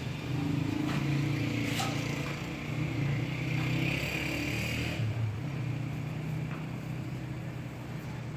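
A motor vehicle engine running with a steady, wavering low hum, joined by a higher hiss from about two to five seconds in. A single sharp click sounds a little under two seconds in.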